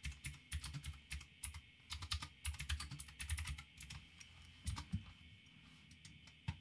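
Computer keyboard typing, faint runs of quick keystrokes that thin out to a few scattered clicks after about five seconds.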